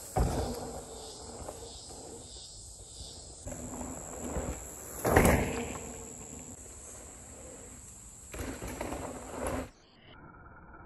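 Mountain bike landing drops off wooden trail features: a thud just after the start and a louder one about five seconds in, with tyre and bike rattle between, over a steady high insect buzz. Near the end the sound drops away suddenly to a quieter, muffled background.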